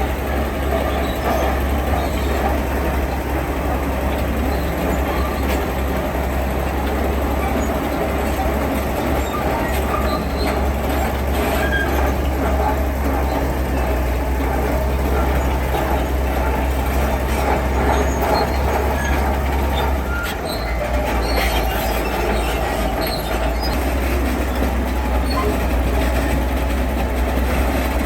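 Heavy diesel construction machinery working: a steady engine drone with scattered metallic clanks and scrapes.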